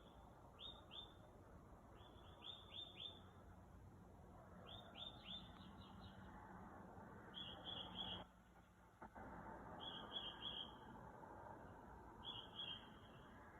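A songbird singing at night: short phrases of two to four quick, high chirping notes, repeated every second or two, with the phrase changing from one group to the next.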